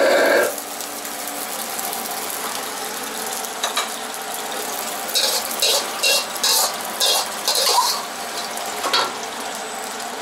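Metal ladle scraping and knocking against a wok while food is stir-fried, over a steady hiss. The clattering strikes come in a quick cluster between about five and eight seconds in, with single strikes before and after.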